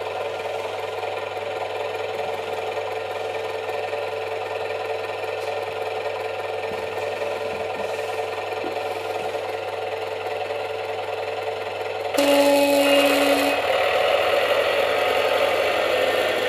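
Simulated diesel engine sound from a Massoth eMotion XLS sound decoder, played through the speaker of an LGB model of an RhB tractor locomotive, idling steadily. About 12 s in the engine sound steps up louder as the locomotive pulls away, with a brief pitched tone for about a second and a half at that moment.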